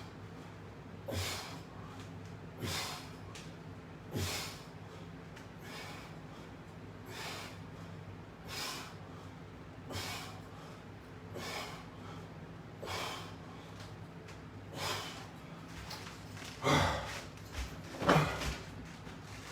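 A person exercising, breathing out sharply in a steady rhythm about once every second and a half, one breath per repetition. Near the end come two louder breaths with a dull thud, over a steady low hum.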